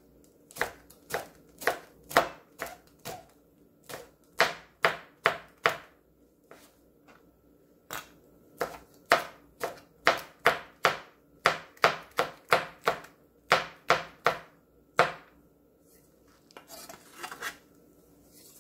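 Chef's knife slicing a red chili pepper on a cutting board: sharp knocks of the blade hitting the board, about two a second, in runs with short pauses between them. A few softer scrapes near the end.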